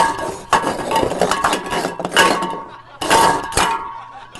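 Dishes and cutlery clattering, with a run of sharp clinks that each ring briefly, like crockery and silverware jostled on a tray.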